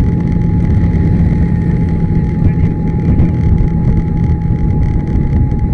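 Yamaha SMAX scooter on the move: steady engine and wind rumble with a thin, steady high tone running through it.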